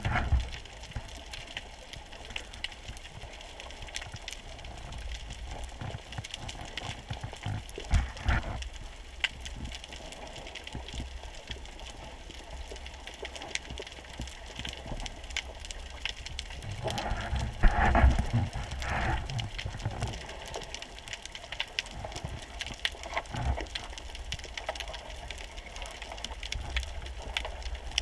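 Underwater ambience heard through a camera's housing: a steady hiss with scattered small clicks, and a few low rushing surges of water moving past the housing, the biggest about two-thirds of the way through.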